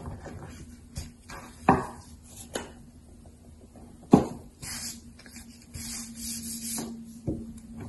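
Handling sounds of rolling out fondant on a marble board: scattered knocks as a plastic rolling pin and a sugar container are set down on the stone, the loudest about four seconds in, with soft rubbing and rustling as the thin sheet of fondant is lifted, the board dusted and the sheet pressed flat. A faint steady hum sits underneath in the second half.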